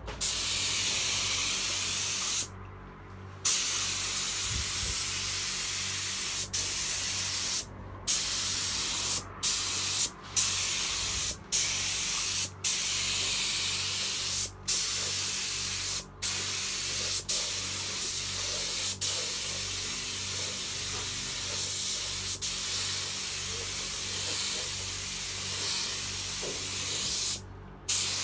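Gravity-feed spray gun with a 1.8 tip hissing as it sprays anti-rust primer, in passes broken by many short pauses where the trigger is let go. A low steady hum runs underneath.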